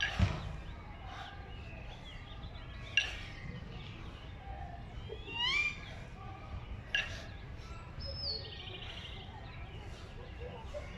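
Two 20 kg competition kettlebells clanking metal on metal three times, about three to four seconds apart, as they settle in the rack between jerk repetitions. A short rising chirp-like squeal sounds between the second and third clank.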